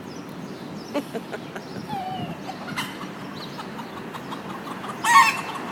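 Chickens clucking faintly over steady background noise, then a loud pitched chicken call about five seconds in.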